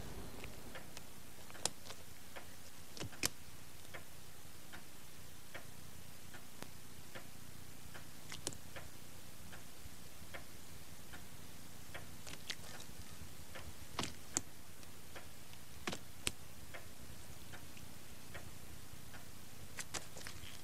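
Soft, regular ticking, about two ticks a second, over a steady hiss, with a few louder, sharper clicks scattered through.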